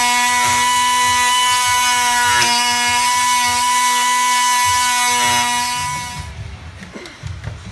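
A small electric power tool, like a cordless drill or driver, running with a steady whine at one pitch. It stops about five and a half seconds in.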